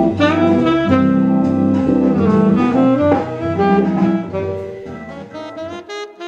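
Selmer alto saxophone playing a jazz melody over a deep bass accompaniment. The music fades over the last couple of seconds, and the bass drops out near the end.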